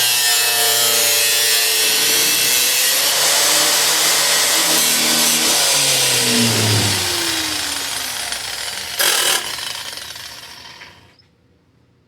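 Handheld power cutting tool running at full speed while cutting sheet-metal floor. It is then let off and winds down, its pitch falling as the level fades over several seconds. A short burst comes late in the wind-down, and it stops shortly before the end.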